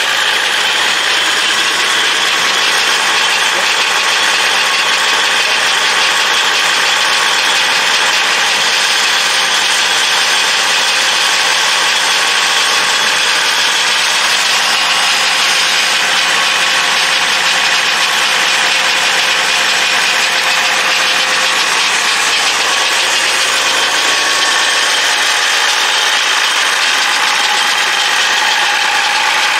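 International Harvester Farmall 706 tractor's engine running steadily at an even speed.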